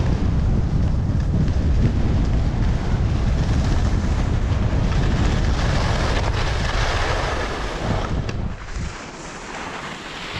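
Wind buffeting an action camera's microphone during a fast ski descent, a loud low rumble, with the hiss of skis running over packed snow. The rumble drops off sharply near the end.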